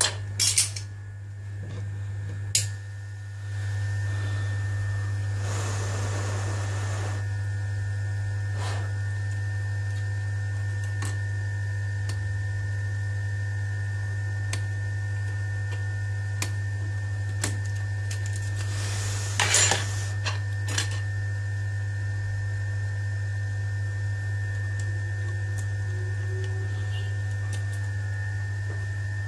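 A steady low electrical hum, with scattered light clicks and taps of tweezers and small metal parts on a workbench; a short cluster of louder taps comes about two-thirds of the way through.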